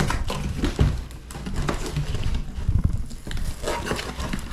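Cardboard shipping box being torn open by hand: packing tape ripping and the flaps crackling and rustling, with irregular knocks as the box moves on the table.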